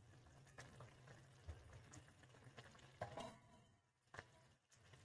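Near silence, with a few faint, brief ticks.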